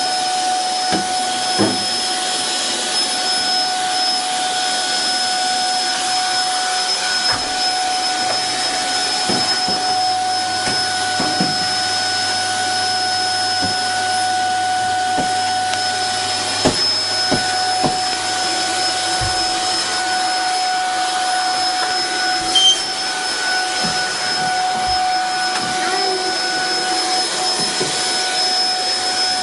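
Vacuum cleaner running steadily with a constant motor whine, with occasional brief knocks and bumps.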